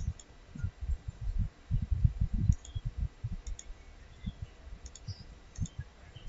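Computer mouse clicking irregularly, a handful of sharp clicks among dull low thumps.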